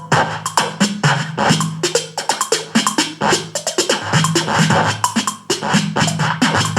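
SberBoom smart speaker playing electronic music with a punchy drum beat and a repeating bass line. It carries almost no deep bass.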